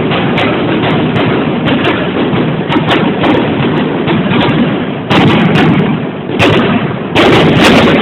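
Fireworks bursting in a dense, continuous barrage of booms and crackles, with three louder volleys in the last three seconds.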